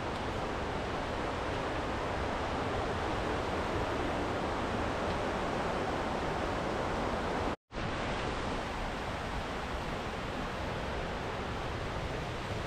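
Rushing water: a steady, dense rush, briefly cut off by a moment of silence a little past halfway.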